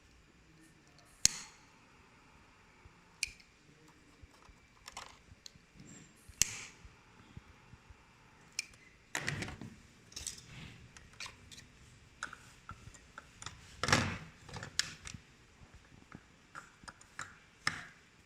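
Irregular clicks, taps and short rustles of small plastic parts and tools being handled during the repair of a toy RC boat, with sharp clicks about a second in and about three seconds in and a louder knock and rustle about fourteen seconds in.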